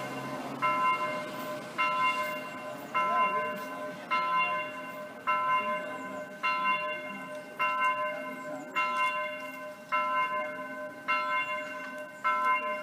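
Electronic church bells simulating a single bell, striking the same note over and over at an even pace of about one stroke every 1.2 seconds, each stroke ringing on into the next.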